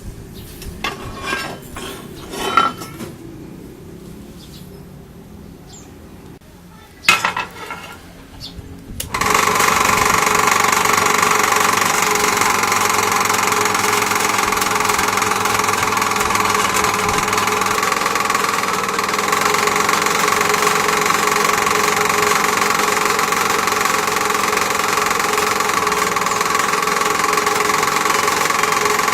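A few metal clinks and knocks, then about nine seconds in a homemade lathe's electric motor switches on and runs steadily, with a whine of several tones.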